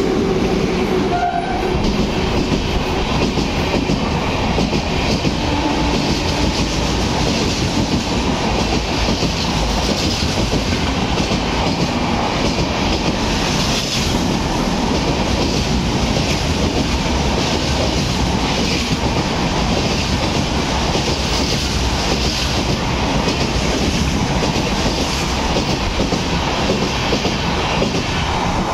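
LHB coaches of an express train passing at speed through a station without stopping: a loud, steady rush of wheels on rail.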